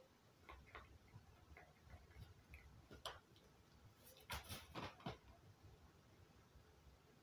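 A pet crow moving about its room: a series of faint, short clicks and taps, a few scattered at first, then a quick cluster of louder, sharper ones about four to five seconds in.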